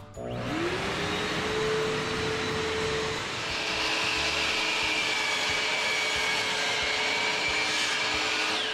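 Kärcher wet/dry shop vacuum switched on, its motor spinning up with a quick rising whine and then running steadily. A second, higher whine joins about three seconds in as the DeWalt sliding miter saw, its dust port hosed to the vacuum, is run for a cut.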